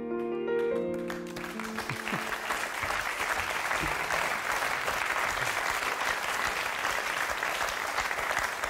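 Soft instrumental music for the first two seconds or so, then a theatre audience applauding steadily.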